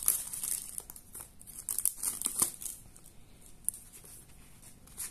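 Clear plastic shrink-wrap being peeled and torn off a small cardboard box, crinkling and crackling on and off for about the first two and a half seconds, then dying down to quieter handling of the box.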